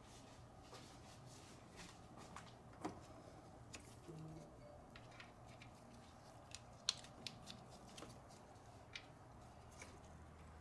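Faint, scattered clicks and light clinks of metal sockets and extensions handled in gloved hands, the sharpest about three and seven seconds in, over a faint steady low hum.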